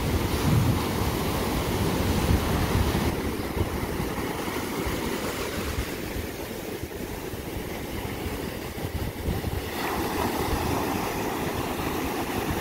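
Ocean surf breaking and washing up a sandy beach, with wind rumbling on the microphone. The rush of the wash eases a few seconds in and builds again near the end.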